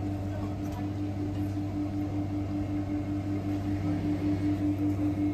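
Steady electrical hum of a vending machine: a low drone with a higher tone pulsing evenly over it.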